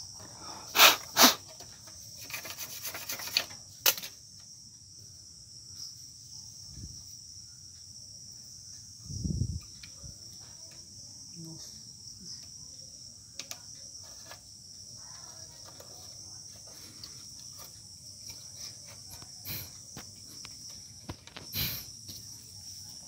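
Hands working on a weighing scale's circuit board: a few sharp clicks and taps, the loudest two about a second in, and a short dull knock midway. A steady high-pitched hiss or chirring runs underneath.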